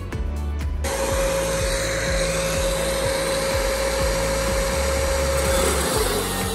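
Angle grinder with a thin cut-off wheel starts abruptly about a second in and runs with a steady high whine over a dense grinding hiss, cutting into the rim of a steel brake disc; the whine dips slightly lower near the end as the wheel bites into the metal. Background music with a low beat runs underneath.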